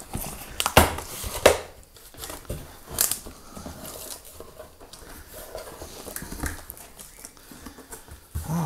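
Cardboard box flaps being pulled open and handled, with rustling of paper and plastic packing and a few sharp knocks in the first three seconds.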